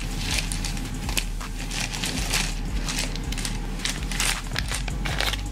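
Plastic candy bag (Airhead Bites) crinkling and crackling as it is handled and tipped out, with many short sharp crackles throughout.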